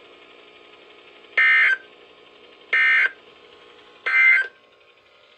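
Three short bursts of NOAA Weather Radio SAME data tones, the EAS end-of-message code sent after a broadcast alert. Each burst is a brief electronic warble about a third of a second long, a little over a second apart, over a steady radio hiss.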